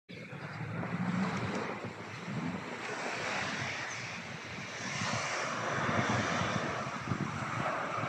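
Beach ambience: waves washing ashore, with wind gusting on the microphone.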